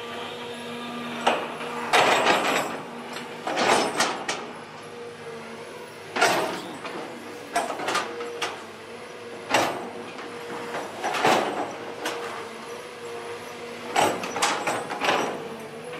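Long-reach excavator working: its engine runs with a steady hum and a constant tone, under irregular sharp metal knocks and scrapes every second or two.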